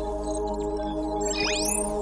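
Synthetic sci-fi HUD interface sound effect: a fast electronic sweep rises steeply in pitch about a second and a half in, with a few faint high digital blips before it. It plays over a sustained electronic drone.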